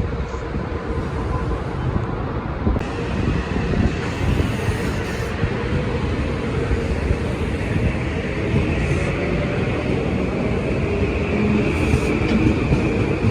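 A train running by, a steady rumble with a thin steady whine above it, getting a little louder near the end.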